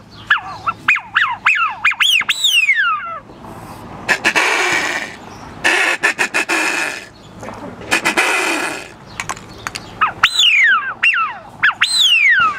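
Wooden duck call blown by mouth, imitating a duck: a quick run of sharp whistles that each fall in pitch, then three longer raspy calls, then another run of falling whistles near the end.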